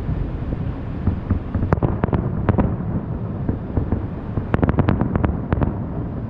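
Fireworks cracking and popping in two clusters: a few sharp reports about two seconds in, then a rapid run of about ten near five seconds. A steady low rumble runs under them.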